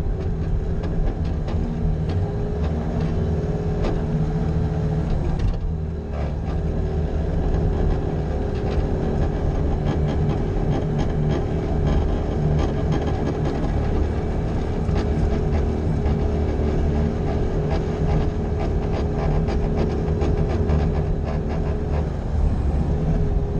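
Bobcat skid-steer loader running under load while plowing snow. Its engine drones with a steady whine over it, and frequent clanks and rattles run through it. The sound dips briefly about six seconds in.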